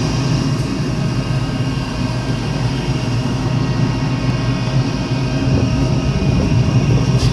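Shipboard machinery running steadily: a low drone with a hum of several steady tones over it, unchanging throughout.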